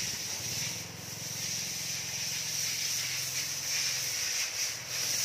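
A motorcycle engine running low and fading away as the bike pulls off, under a steady high hiss.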